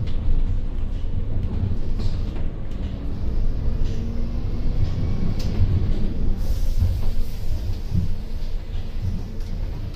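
Volvo Caio Procity city bus on the move: a steady low rumble of engine and road, with a few short rattles and knocks from the bodywork.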